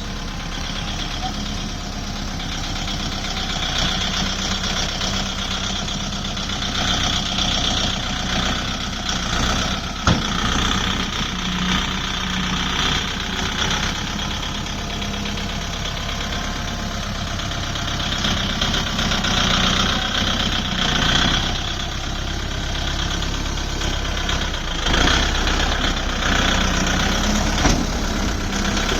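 Diesel farm-machine engine running steadily at a constant speed. There is a single sharp knock about ten seconds in.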